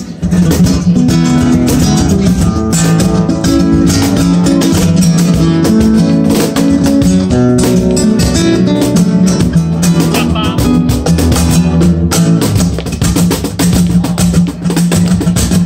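Two acoustic guitars playing flamenco-style music, quick plucked runs over strummed chords. Hand claps keep time with the guitar near the end.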